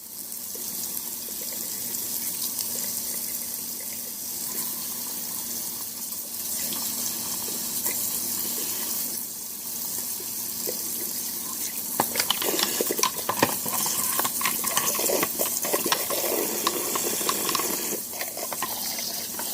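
Kitchen tap water running into and splashing through a dishwasher spray arm held in the sink, flushing out debris. About two-thirds of the way through, the splashing gets louder and more uneven, with small knocks as the part is handled.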